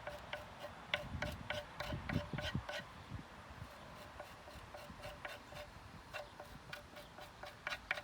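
Jute twine being scraped on a cutting board to fuzz up its fibres for tinder: repeated short rasping strokes, about two to three a second, heavier for the first few seconds and then lighter.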